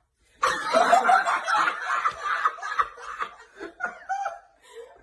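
Laughter: a loud burst about half a second in that breaks into shorter chuckles and fades near the end.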